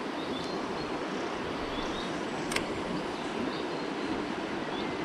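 Shallow river flowing steadily over a stony riffle, a continuous rush of water. Faint short high chirps come now and then, and a single sharp click sounds about halfway through.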